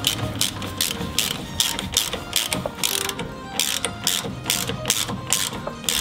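Hand ratchet clicking in quick back-and-forth strokes, about three a second, as a bolt is done up.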